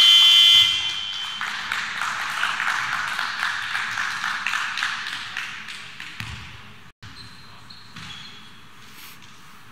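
Basketball arena buzzer sounding one steady tone, which cuts off under a second in. Crowd noise fills the hall after it and fades away over the next few seconds.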